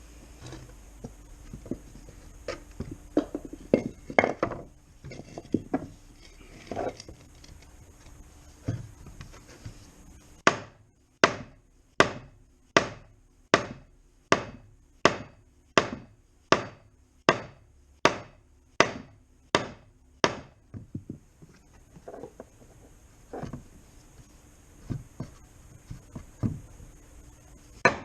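Hammer blows on a plastic skid plate, knocking a dent flat. Irregular knocks come first, then a steady run of about fourteen blows at a bit over one a second, then lighter scattered taps.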